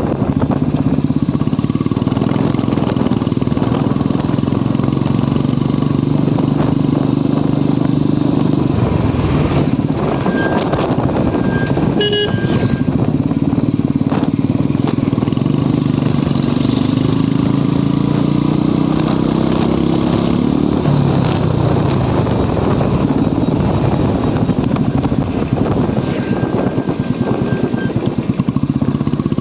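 Motorcycle engine running at road speed; the engine note eases off about nine seconds in, climbs in pitch as the bike accelerates from about sixteen seconds and drops again at about twenty-one seconds. A vehicle horn sounds briefly about twelve seconds in.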